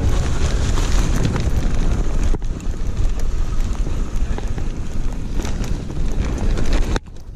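Heavy wind noise buffeting the camera microphone, with the rumble and rattle of a mountain bike running fast down a dirt trail and scattered sharp clicks. The sound drops out briefly near the end.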